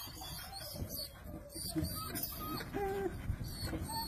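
Four-month-old German shepherd puppies whining, a string of short high whimpers one after another, some sliding up or down in pitch.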